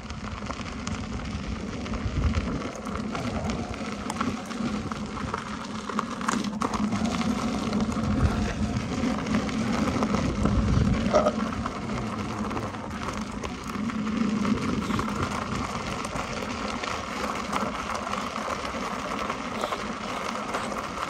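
Electric unicycle riding along a gravel path: steady tyre noise on gravel, with a low uneven rumble that rises and falls.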